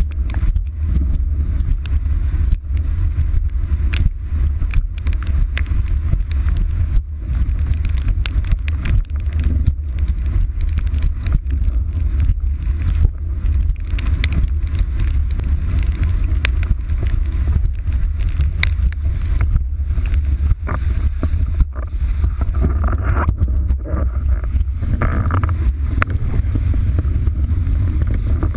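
Heavy wind buffeting the microphone of a camera mounted on a windsurf rig, a loud, constant low rumble. Many crackles of spray and water hit the rig throughout.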